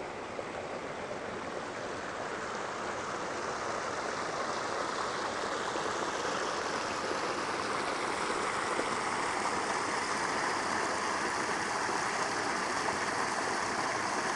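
Steady rush of a mountain stream, slowly growing louder.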